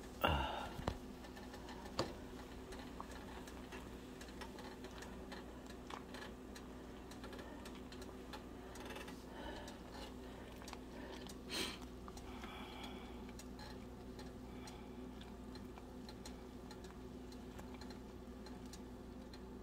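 Pot of greens simmering in water, giving faint scattered ticks and pops over a steady low hum. Just after the start a spatula scrapes and knocks in the pot.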